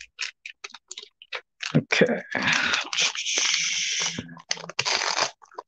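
Foil trading-card pack wrapper crinkling and clicking under the fingers, then peeled open with a long tearing rustle from about two seconds in. A shorter rustle comes near the end.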